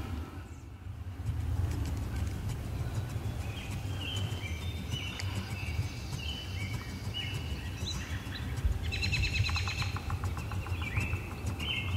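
Birds calling: a string of short chirping notes, with a rapid rattling series about nine seconds in, over a steady low rumble.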